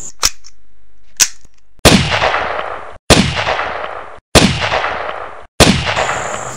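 Four gunshot sound effects about a second and a quarter apart, each ringing out for about a second and then cut off short. Two faint clicks come before them.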